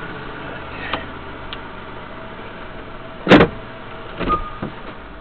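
A loud, sharp thump inside a parked vehicle's cab about three seconds in, followed about a second later by two or three smaller knocks, over a steady low hum.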